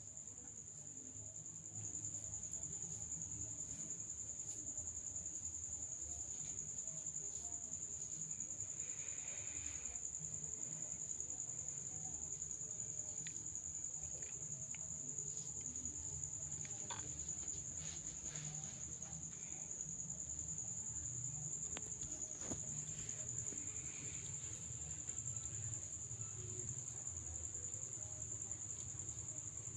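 Crickets trilling, one steady high-pitched drone that never breaks, over a low hum with a few faint clicks.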